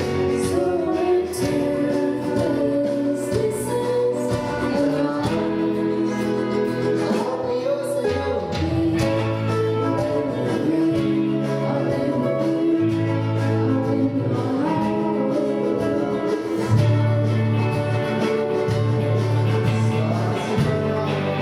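A live indie band playing a song: a voice singing over guitar, with low held bass notes changing every second or two.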